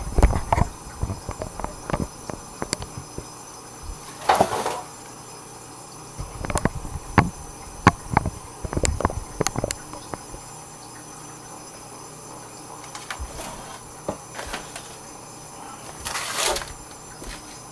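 Kitchen handling sounds: scattered light clicks and knocks, with a short rushing hiss about four seconds in and another near the end.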